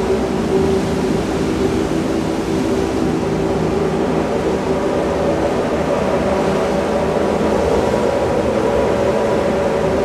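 Even, steady rushing of surf breaking on rocks, with a sustained low drone of held notes over it; the drone's notes shift about halfway through.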